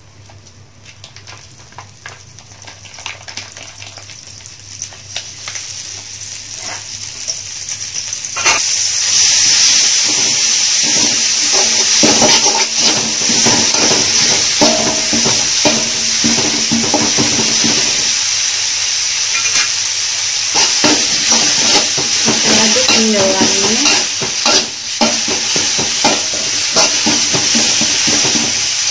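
Butter heating in a metal wok, sizzling quietly and growing louder; about eight seconds in, ground spice paste of chili, shallot, garlic and candlenut goes into the hot fat and the sizzle jumps to a loud, steady frying hiss. A spatula scrapes and stirs against the wok as the paste sautés.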